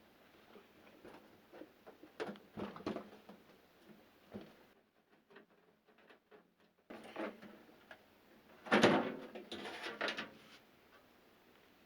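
Handling noises from taking apart a microwave oven's casing: scattered clicks and knocks, with a louder burst of scraping and rattling about nine seconds in.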